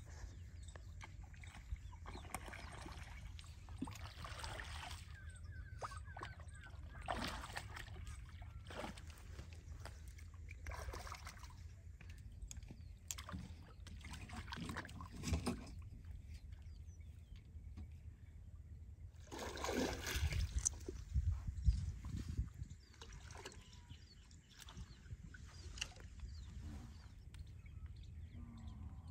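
Water sloshing and splashing in an irregular run as hands work in shallow muddy water around the end of a pump's suction hose, clearing grass and mud, over a low steady rumble. The loudest splashing comes about two-thirds of the way through.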